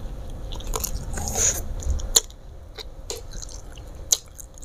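Close-miked eating of fried fish and rice by hand: wet chewing and lip smacks, with a few sharp clicks, the loudest about two seconds in and another about four seconds in.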